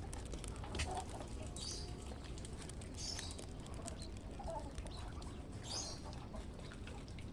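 Faint bird calls: a few short, high chirps spaced a second or more apart, with a couple of lower calls between them, over a low steady background hum.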